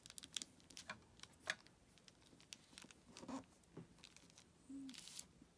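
Faint, scattered light taps and rustles of paper being handled and pressed into place by hand.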